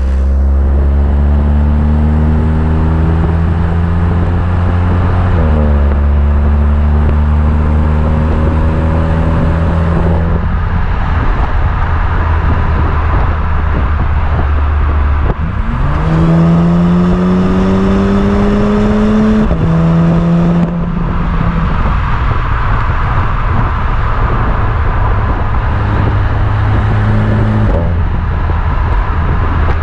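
Stock exhaust of a VW Golf 7R's turbocharged 2.0-litre four-cylinder, heard from right behind the tailpipes while driving. The engine note climbs under acceleration and drops at each gear change, several times over, with a sharp rise in pitch about halfway through.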